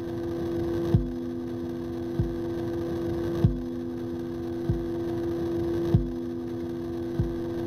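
Electronic drone played through loudspeakers: a steady hum of a few held tones, with a soft low thump repeating about every second and a quarter.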